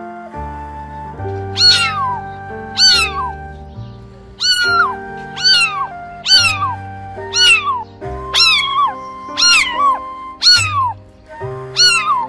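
A cat meowing over and over, about ten short meows roughly a second apart, each one falling in pitch. Background music with sustained notes plays underneath.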